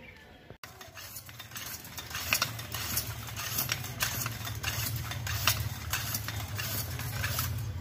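Floor hand pump being worked to inflate a car tire on a steel wheel: a quick, repeated series of sharp clicks from the pumping, over a steady low hum.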